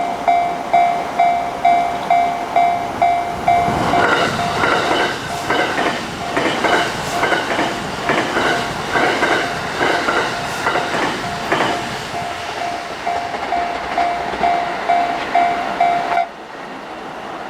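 Japanese level-crossing warning bell clanging about twice a second. About four seconds in, a train passes with wheels clacking over the rail joints and partly drowns out the bell. Near the end the bell cuts off suddenly.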